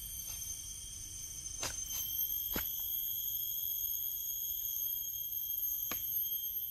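Steady shrill insect chorus, several unbroken high-pitched tones at once, with three sharp clicks or snaps about one and a half, two and a half and six seconds in.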